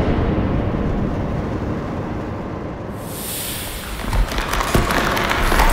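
Designed slow-motion sound of a .308 rifle shot through a clear acrylic suppressor: a long, deep boom rumbles on, then about three seconds in a high hiss rises, and from about four seconds in sharp cracks and crackling come in as the acrylic tube splits and shatters.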